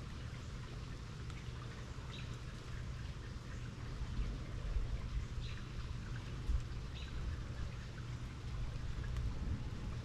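Steady rain falling, with scattered drips and a low rumble underneath.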